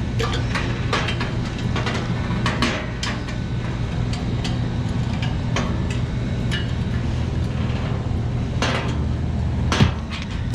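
Irregular metallic clicks and taps of hand tools working a refrigeration receiver's service valve, over a steady low machinery hum.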